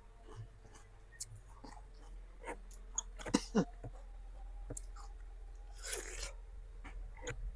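Close-up chewing of crisp rujak fruit pieces, with crunches and wet mouth clicks; the loudest crunches come about three and a half seconds in, followed by a short breathy sound about six seconds in.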